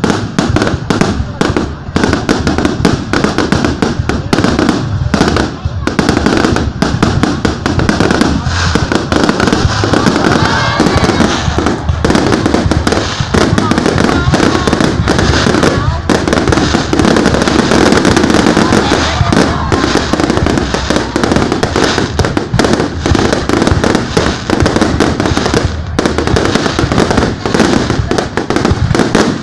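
Fireworks going off in a dense, continuous barrage of overlapping bangs and crackles.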